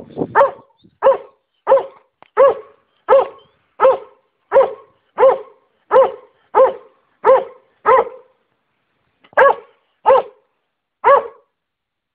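A hunting hound (Albanian zagar) barking over and over, about fifteen loud barks at a steady pace of roughly one every 0.7 seconds, each a short call that rises and falls in pitch. A brief pause comes about eight seconds in before three more barks.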